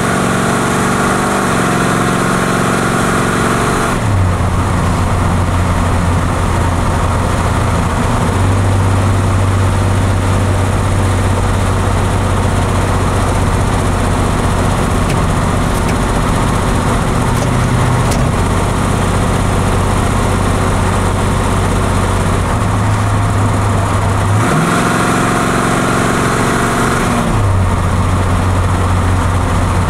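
Car engine running with a Carter mechanical fuel pump that the owner suspects is bad. It runs faster for the first few seconds, drops to a lower steady idle, rises again briefly near the end, then drops back.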